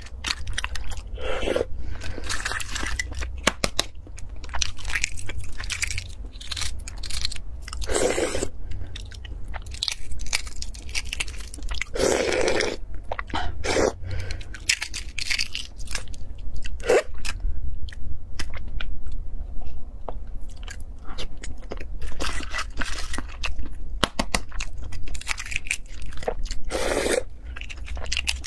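Cooked eggshells cracking and crinkling as they are peeled by hand, a dense run of small crackles with a few louder crunches, mixed with close-up chewing.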